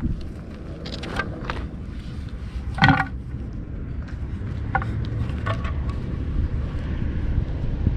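Light clicks and taps from hands working string and a wooden rod at a flat ground loom, tying loops onto the warp threads, a few scattered ticks with one sharper tap about three seconds in, over a steady low outdoor rumble.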